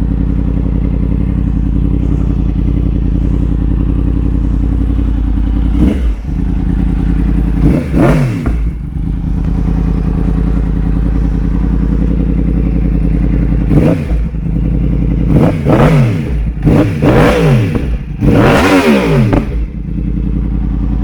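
Freshly tuned Yamaha R1's crossplane inline-four idling steadily. From about six seconds in it is revved in a series of short throttle blips, each rising and falling in pitch, the later ones coming in quick succession.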